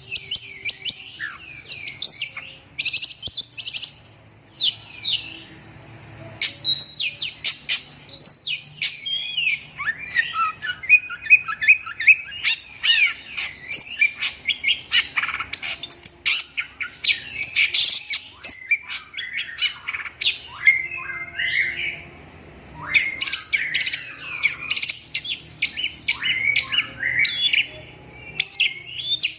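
Chicken crying in distress while caught in a python's coils: rapid, high-pitched squawks and cries almost without a break, with brief lulls about four seconds in and again near the twenty-one-second mark.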